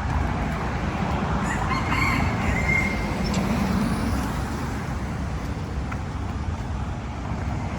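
A rooster crowing once, a drawn-out call starting about one and a half seconds in, over a steady low background rumble.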